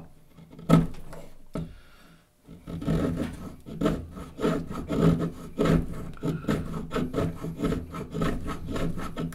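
A knife blade worked back and forth against wood in repeated rasping, sawing strokes, about two a second, after a single sharp knock near the start.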